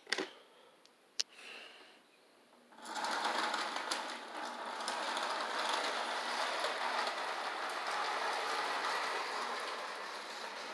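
Two sharp clicks, then, about three seconds in, an electric model train starts running on its track: a steady motor whir with rapid clatter of wheels on the rails.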